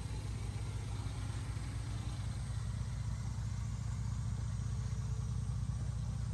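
Small Suzuki Jimny engine running steadily at low revs, a low, even rumble as the 4x4 crawls slowly along a dirt trail.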